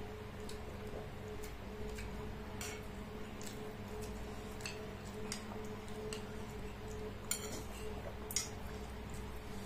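Metal spoons clicking and clinking against ceramic plates of noodles, light scattered ticks with two sharper clinks near the end, over a steady low hum.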